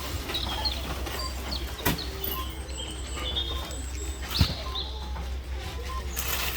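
Birds chirping in short high notes, with two sharp knocks, the louder about four and a half seconds in, over a steady low hum.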